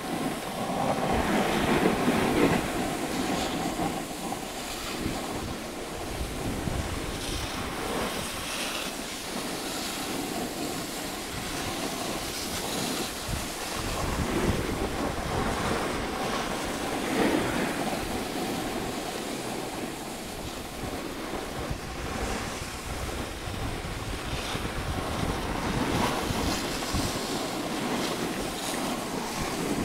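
Skis sliding and scraping over packed snow, mixed with wind buffeting the microphone: a steady rushing hiss that swells now and then.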